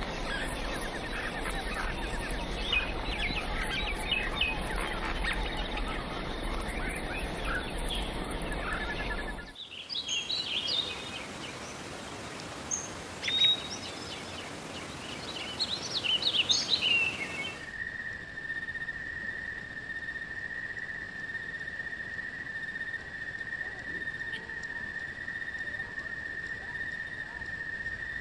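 Forest ambience: many birds chirping over a steady hiss, which gives way about ten seconds in to sparser, sharper bird calls. From about eighteen seconds a single steady, high insect drone takes over.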